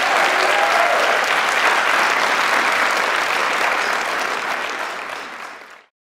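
Audience applauding, fading out and cutting off shortly before the end.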